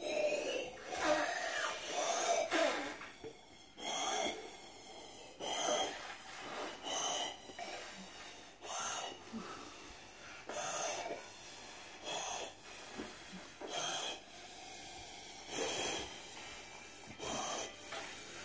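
Two children blowing up glitter punch balloons by mouth: a string of hard breaths, about one a second, gasps in between long puffs of air forced into the rubber balloons.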